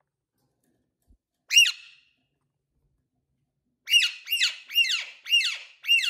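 Alexandrine parakeet calling: one loud call about a second and a half in, then from about four seconds a run of loud, repeated calls, about three a second.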